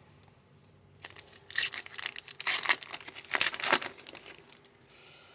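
Thin plastic crinkling and rustling in quick, uneven bursts for about three seconds, starting about a second in: a trading card being slid into a soft plastic card sleeve.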